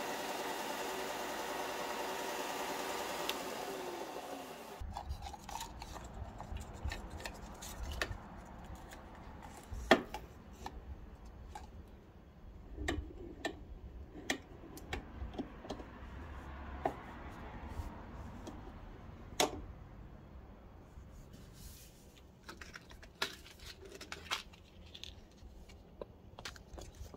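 WEN 4-by-36-inch belt and disc sander running with a board held on the belt, its motor winding down after about five seconds. Then come scattered clicks and knocks of wooden boards being handled and clamped in a bench vise, the loudest knock about ten seconds in.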